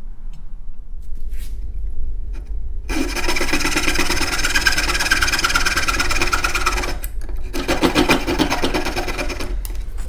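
Coping saw cutting through a laminated wooden board with fast, short rasping strokes, taking out a small triangle of an inside notch. The sawing starts about three seconds in, runs for about four seconds, pauses briefly, then runs again for about two seconds.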